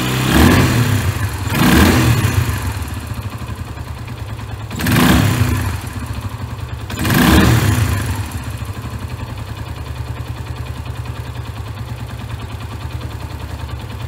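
Suzuki Grasstracker BigBoy's carbureted 250 cc single-cylinder engine running through an aftermarket DELKEVIC stainless slip-on silencer, blipped four times, about a second or two apart in the first eight seconds, then left idling with a steady pulsing note until it cuts off.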